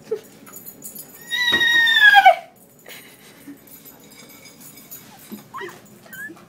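A person imitating a horse's whinny: one loud, high call about a second long, falling in pitch at the end. It is the noise that cues the dog to eat.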